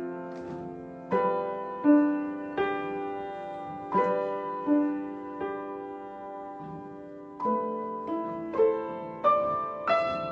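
Slow, gentle solo piano: single notes and chords struck about once or twice a second and left to ring and fade, with a sparser pause in the middle.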